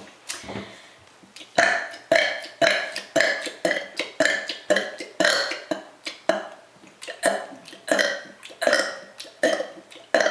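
A young woman burping on purpose in a rapid run of short, quick burps, about two a second, some twenty in a row.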